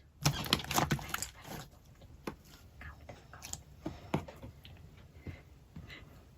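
Slime being squished and pressed by hand, making sticky clicks and pops: a dense run of them in the first second and a half, then scattered single clicks.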